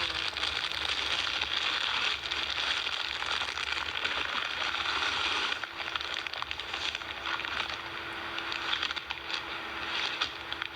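Plastic packaging and clothes rustling and crinkling as they are handled, over a steady hiss that drops about halfway through. A faint steady hum runs through the second half.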